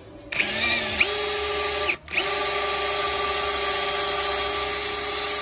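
Electric drill boring into a cracked aluminium alloy wheel rim. The motor spins up about a third of a second in, stops briefly just before two seconds, then restarts and runs steadily at a constant pitch.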